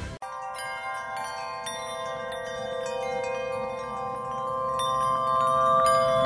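Chimes ringing: many overlapping bell-like tones, each struck in turn and left to sound, building steadily louder.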